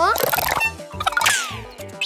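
Cartoon background music with a steady, pulsing bass line, overlaid with cartoon sound effects: a quick rising sweep at the start, a bright noisy burst, and a falling glide about a second and a half in.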